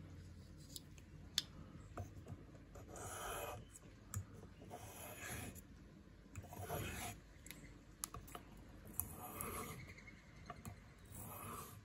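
Leatherman PST knife blade being sharpened: about five slow, separate scraping strokes of steel across an abrasive, with a few light clicks between strokes.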